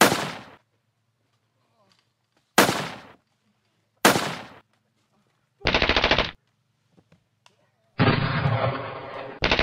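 Gunfire sound effects: three single gunshots a couple of seconds apart, each ringing out, then a short burst of rapid automatic fire and, near the end, a longer burst that runs straight into another.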